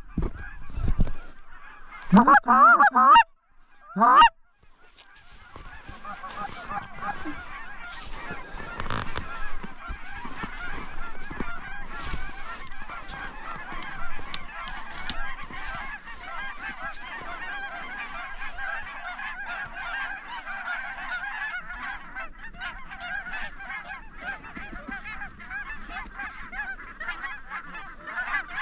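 A large flock of geese honking: two loud, close bursts of calls near the start, then from about five seconds in a dense, unbroken chorus of many geese calling over one another.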